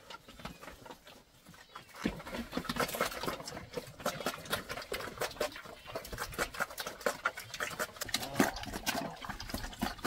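Dense, irregular crackling and rustling of dry rice straw, starting about two seconds in.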